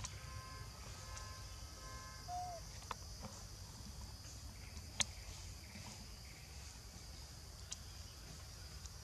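Steady high-pitched drone of forest insects, with a brief squeak about two seconds in and a few sharp clicks, the loudest about five seconds in.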